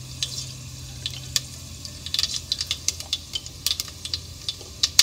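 Mustard seeds popping and spluttering in hot oil in a cast iron pan, as they should when tempered. The pops are sharp, scattered crackles that come thicker and faster about two seconds in, over a low steady hum.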